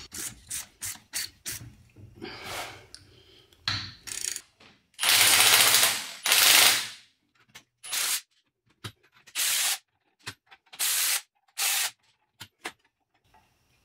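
Red cordless power tool driving the screws of coil spring compressors on a strut assembly, run in bursts: two longer runs of over a second in the middle, then several short blips.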